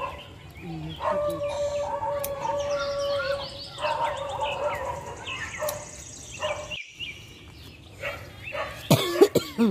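A dog howling in one long held note among chirping birds, then a few loud barks near the end.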